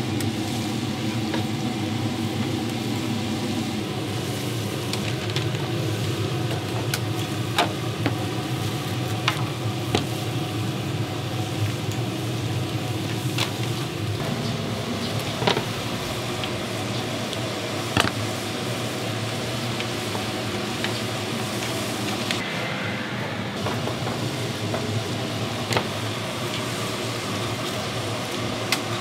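Hotteok pancakes frying in a shallow pool of oil on a flat griddle, a steady sizzle. Occasional short sharp clicks of metal utensils sound over it.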